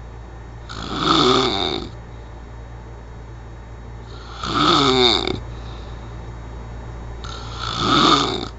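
A person snoring: three loud snores, each about a second long, coming about every three and a half seconds over a steady low hum.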